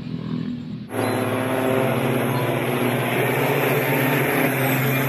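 Diesel semi-truck engines running hard under full throttle, cutting in abruptly about a second in as a steady loud drone.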